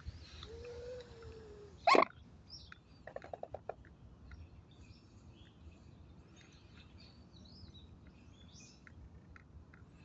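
Swans calling: a soft arching note, a sudden loud short call about two seconds in, then a quick run of about eight short notes. Faint chirps of small birds come and go throughout.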